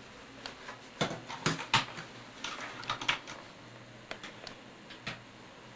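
A dozen or so light, irregular clicks and knocks spread over a few seconds in a small, quiet room.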